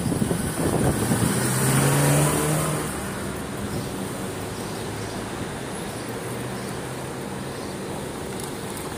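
A car passes close by, its engine note falling in pitch as it goes and loudest about two seconds in; after that, a steady low hum of street traffic.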